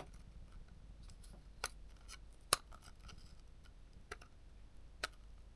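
A few sharp, isolated small clicks and taps from hands working on the parts of a camera lens, with the loudest click about halfway through.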